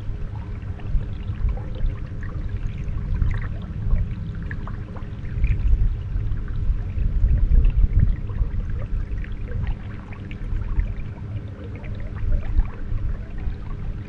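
Water lapping and gurgling against a small boat's hull, with scattered small splashes over an uneven low rumble that swells loudest about halfway through.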